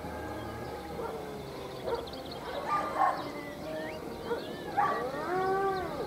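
Dogs howling and yipping, with several short calls and one long howl near the end that rises and then falls in pitch.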